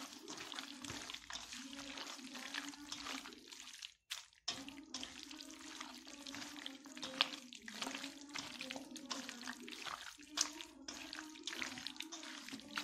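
A hand squishes and turns raw chicken pieces in a wet egg-and-masala marinade in a steel bowl, making irregular wet squelches and clicks. A steady low hum runs underneath, and the sound drops out briefly about four seconds in.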